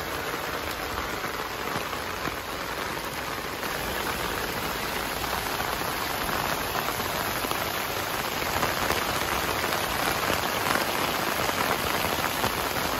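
Heavy rain pouring down in a steady, dense hiss, getting a little louder about four seconds in.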